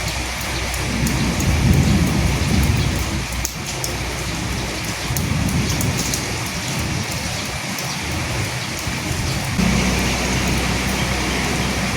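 Steady rain falling on a surface, with low rolling thunder swelling twice. About ten seconds in the sound changes abruptly and a steady low hum joins the rain.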